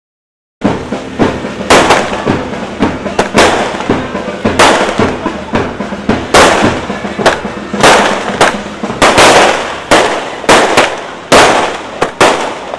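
Fireworks going off in quick succession, a string of loud, sharp bangs at irregular intervals, each trailing off. They start suddenly about half a second in.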